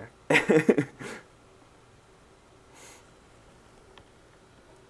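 A short untranscribed vocal sound from a person's voice lasting about a second, then quiet apart from a faint breathy hiss about three seconds in and a soft click near the end.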